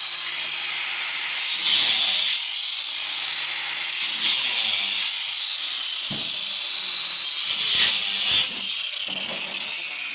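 Handheld electric disc cutter running with a steady high whine as its blade grinds through a granite slab. The cutting grows louder three times as the blade bites harder.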